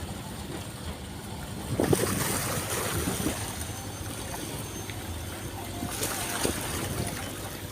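Outdoor harbour noise: wind on the microphone over a low steady hum, with louder rushes of noise about two seconds in and again near six seconds.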